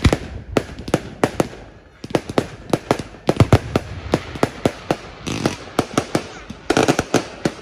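Fireworks display going off: a rapid, irregular string of sharp bangs, several a second, with spells of dense crackling about five seconds in and again near the end.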